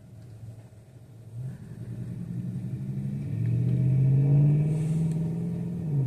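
A motor vehicle's engine driving past close by: it grows louder from about a second and a half in, is loudest around the middle, then begins to fade near the end.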